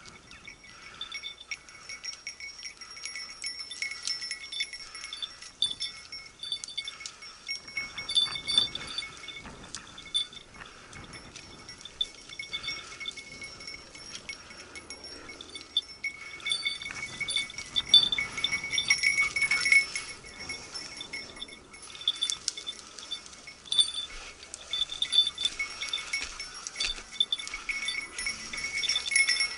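Hunting dog's collar bell jingling irregularly and without a break as the dog works through the scrub. In places there is rustling of dry brush.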